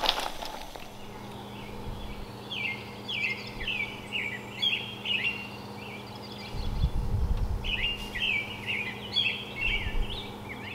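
A songbird singing repeated short, quick chirping phrases in two bouts, over a steady low hum, with a brief low rumble about two thirds of the way through.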